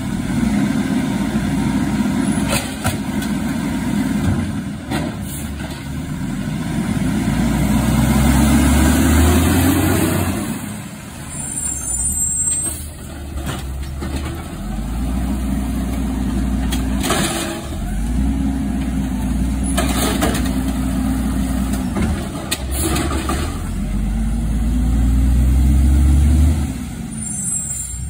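Automated side-loader garbage truck working its lifting arm: the diesel engine revs up and holds for a few seconds, several times over, to drive the hydraulics as carts are lifted and dumped. Short air-brake hisses come in between the lifts.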